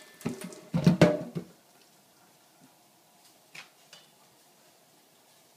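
A quick run of knocks and thuds as things are handled on a plastic cutting board and tiled kitchen counter, then quiet with one faint click about three and a half seconds in.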